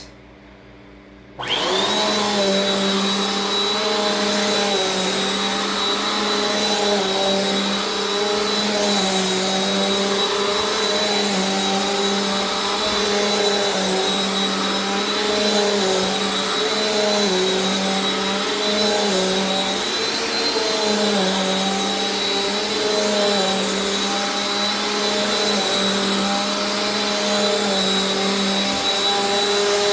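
Bissell PowerForce Compact upright vacuum cleaner switched on about a second and a half in, then running steadily while vacuuming a rug. Its motor hum shifts slightly in pitch as it works, with a thin, steady high whine above it.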